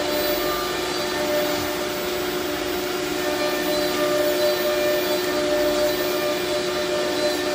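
Steady hum of running CNC router machinery, with a couple of constant tones over an even rushing noise.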